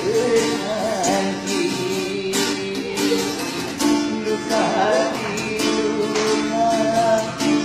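A street busker singing to a strummed acoustic guitar, the voice carrying a wavering, held melody over steady strumming.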